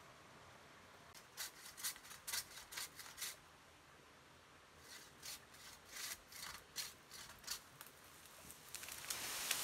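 Pole-mounted Japanese pruning saw cutting into a branch high in a tree: two runs of quick rasping saw strokes, about two a second, with a pause between. A growing rushing noise comes in near the end.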